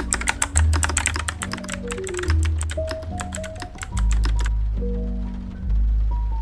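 Fast typing on a Yunzii QL75 mechanical keyboard, a rapid run of key clicks that stops about two-thirds of the way through, over background music with a bass line and melody.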